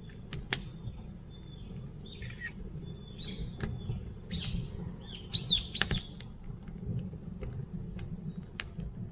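Songbirds chirping, with a quick run of calls about halfway through, over the sharp scattered pops of a crackling wood campfire.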